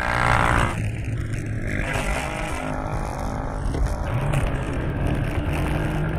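Car engine running under acceleration with road and tyre noise, heard from inside the moving car.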